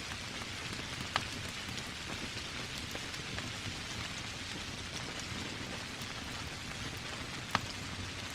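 Steady rain hissing and pattering, with two sharp pops from a crackling log fire, one about a second in and one near the end.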